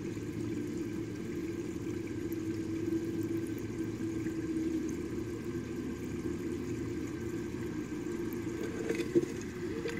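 Aquarium pump running with a steady low hum and some moving water. A single sharp knock near the end.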